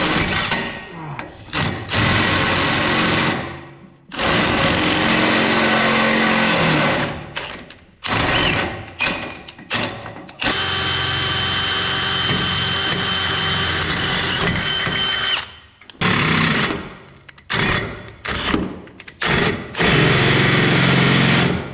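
DeWalt cordless drill boring into the excavator's steel frame, run in several bursts of a few seconds each with short stops between, then in shorter on-off blips near the end. The drill labours in the metal, not having enough power to get through easily.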